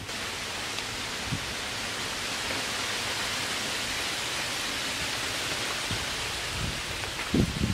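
A steady, even hiss. There is a soft low thump about a second and a half in and two stronger thumps near the end.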